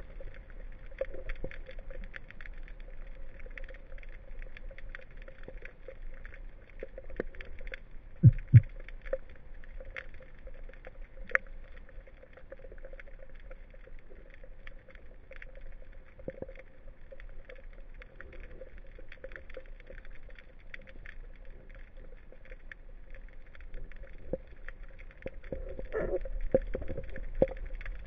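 Underwater ambience heard through a camera housing: a low steady rumble with scattered crackling clicks, two low thumps close together about eight seconds in, and a sharp click a few seconds later.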